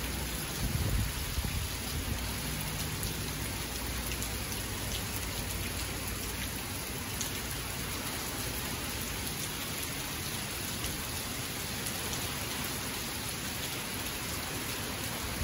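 Heavy tropical-storm rain falling steadily, an even hiss, with a brief low rumble about a second in.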